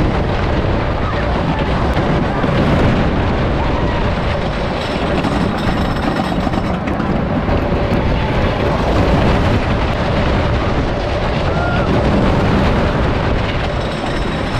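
1967 Philadelphia Toboggan Company wooden roller coaster train running at speed over its wooden track: a loud, steady rumble and rattle of the wheels and cars, mixed with wind rushing past.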